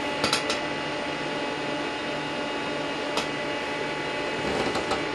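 Steady whir of cooling fans on RF power amplifiers and bench test equipment running under load, with a fixed electrical whine in it. A few sharp clicks: a quick cluster just after the start, one a little past the middle and several more near the end.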